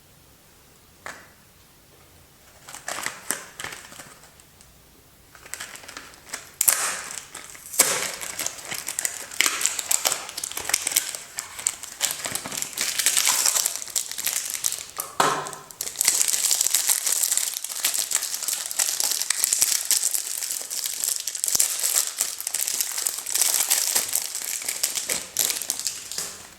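Soap packaging being unwrapped by hand, its wrapper crinkling and crumpling. It comes in short bursts at first and is almost continuous for the last ten seconds.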